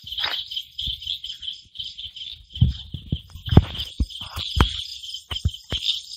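A steady, high-pitched, pulsing chorus of night insects, with irregular knocks and thumps over it, loudest a little past the middle.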